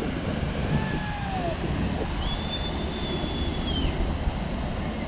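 Wind rushing over the microphone with a steady low rumble. A few faint, drawn-out high tones sound far off.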